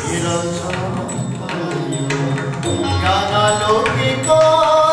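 Odissi dance music: a melody line with its pitch gliding and held, over a run of sharp drum and jingle strokes.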